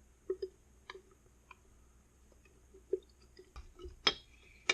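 Scattered light clicks and taps with a few soft crunches, from styrofoam pieces being broken off and stirred into gasoline in a jar. The sharpest click comes about four seconds in.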